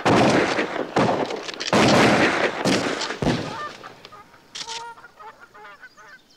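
A rapid volley of about five shotgun blasts in the first three and a half seconds, each trailing off in a short echo. As the shooting stops, a few ducks quack faintly.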